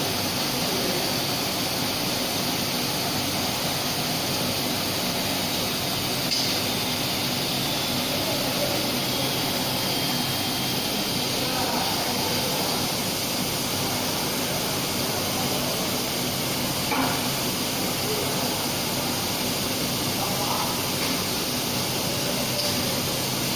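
Five-axis CNC tool grinder running a grinding cycle: a steady, even hiss of the grinding wheel and its oil coolant spray, with a faint high whine.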